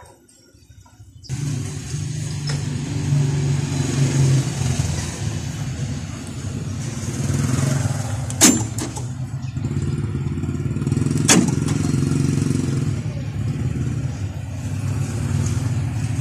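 A vehicle engine idling steadily, starting abruptly about a second in, with two sharp clicks about three seconds apart midway through: the door-lock actuator working as the new keyless-entry remote is pressed.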